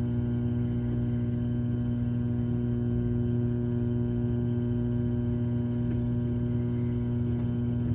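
Microwave oven running: a steady electrical hum.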